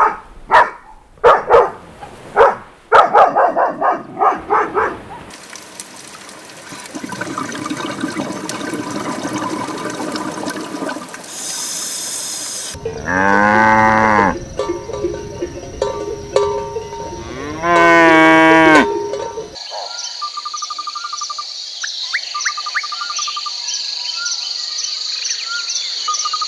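Farm animal calls in quick succession: a run of short sharp calls at first, then two long drawn-out calls typical of cattle mooing, the loudest part, and a steady high-pitched chirring with regular ticks through the last several seconds.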